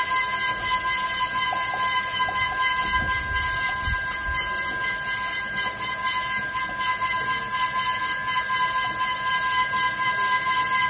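Mini boba (tapioca pearl) making machine running: its motor and cutting rollers give a steady high whine over a hiss, with scattered faint clicks.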